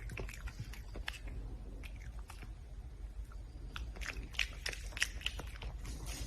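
Red panda chewing and crunching food in irregular sharp crunches, sparse in the middle and coming in a quicker run about four to five seconds in.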